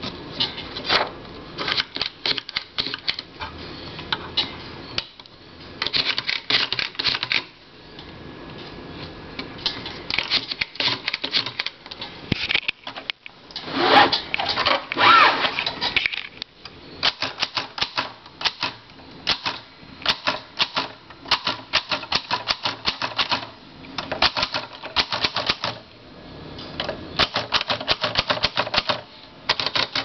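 1949 Empire Aristocrat manual portable typewriter being typed on: quick runs of keystrokes with the typebars striking the platen, separated by short pauses, and a louder clatter about halfway through.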